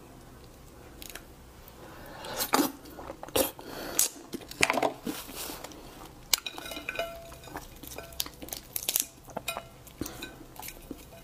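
Close-up eating sounds of raw crab: a run of loud wet mouth bursts about two to five seconds in, as the roe and meat are sucked from the shell. Chewing follows, then small crackles and clicks as the crab's shell and body are pulled apart near the end.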